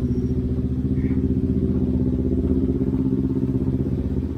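A 200cc Rouser motorcycle's engine running steadily at low revs in stop-and-go traffic, with a fast, even throb and no change in pitch.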